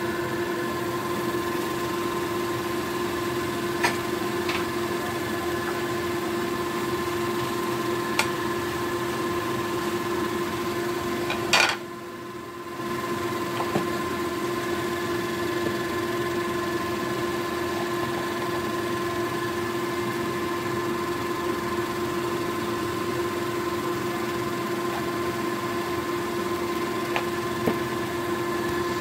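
Steady hum of a kitchen appliance's fan motor, holding several fixed tones, with a few light taps of a wooden spatula against the pan. The loudest is a sharp click near the middle, after which the hum briefly drops away.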